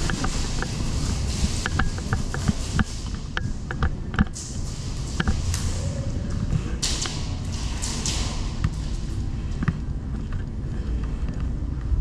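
Scattered sharp clicks and taps at irregular intervals, typical of airsoft guns firing and BBs striking the arena's walls, over a steady low rumble.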